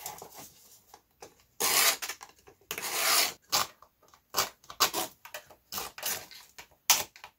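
A blade scraping cured epoxy sealer along the edge of a wooden outrigger ski in rasping strokes: two longer strokes about two and three seconds in, then a run of short quick ones. The scraping shaves the rough, fuzzy sealer smooth.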